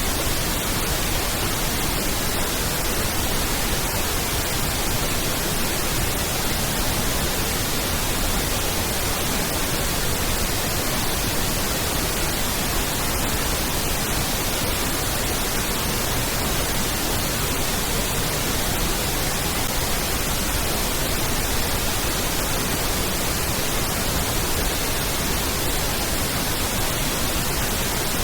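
Pink noise test signal: a steady, even hiss spread across the whole frequency range, with equal energy per octave, used for aligning and equalising a sound system.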